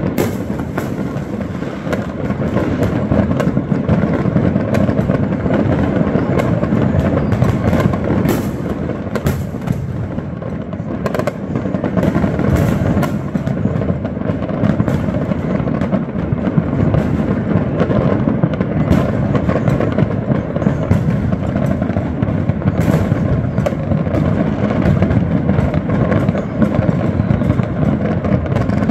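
Dense, continuous barrage of fireworks and firecrackers: a steady rumble of bursts with many sharp bangs and crackles.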